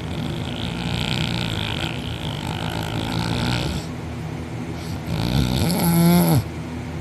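A man snoring heavily in deep sleep: a long noisy breath, then about five seconds in a louder, pitched snore with a wavering tone that cuts off sharply.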